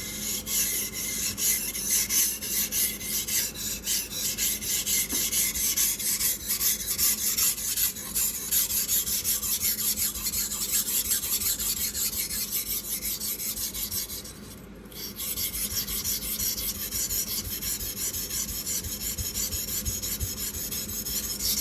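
A kitchen knife blade scraping back and forth on a water stone in quick, steady strokes, about two a second, with a brief pause about two-thirds of the way through. It has the rasping sound that tells the sharpener the stone is drying out and needs more water.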